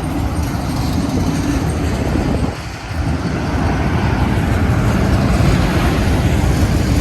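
Union Pacific autorack freight train rolling past close by: a loud, steady rumble of steel wheels on the rails, dipping briefly about two and a half seconds in and then running slightly louder.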